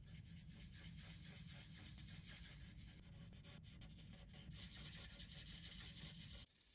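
Felt-tip Imagine Ink marker scribbling quickly back and forth on a coloring page, a faint, rapid scratching that stops abruptly near the end.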